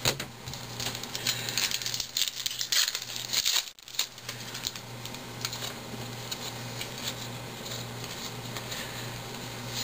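Trading cards being handled and flicked through by hand: a run of light papery clicks and rustles, busiest in the first few seconds, over a low steady hum.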